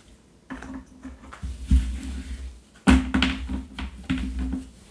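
A deck of oracle cards being shuffled and handled by hand over a table, with rustling and a few soft thumps. The loudest run of handling noise starts about three seconds in.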